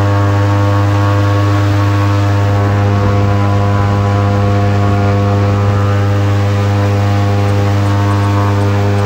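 Airboat's engine and air propeller running at a steady speed: a loud, even drone that holds one pitch throughout.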